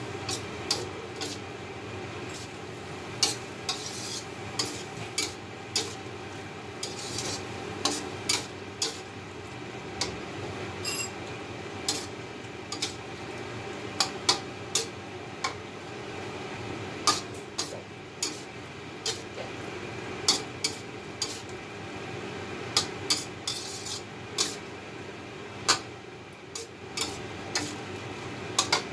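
Metal spatula stirring fusilli in cream sauce around a metal wok, scraping along the pan and clinking against its rim in irregular sharp knocks, many times.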